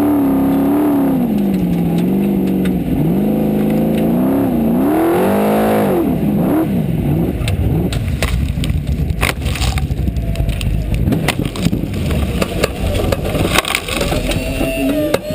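Formula Offroad hill-climb car's engine heard from inside the cab, revving up and down, then rising sharply and dropping away about six seconds in. A heavy rumble with irregular knocks and bangs follows as the car goes over in the dirt.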